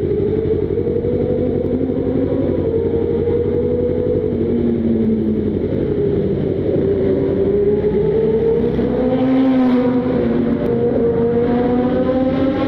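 Yamaha YZF-R25/R3 parallel-twin engine running on the move, its pitch rising and falling gently with the throttle rather than revving hard.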